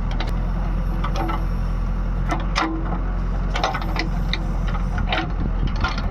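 A machine's engine running steadily, with irregular knocks and clicks over it.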